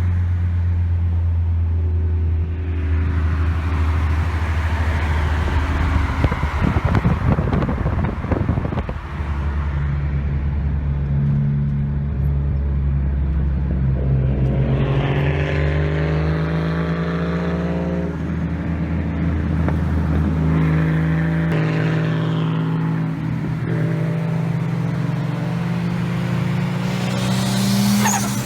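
Car engine running while driving, holding steady revs and then climbing in pitch as it accelerates partway through, with tyre and road noise.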